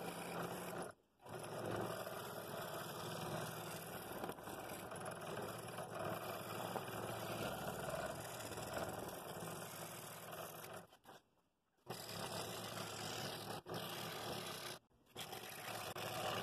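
Scroll saw running, its reciprocating blade cutting through two stacked boards along a pattern line in a steady buzzing rasp. The sound breaks off briefly about a second in, again around eleven seconds and once more near fifteen.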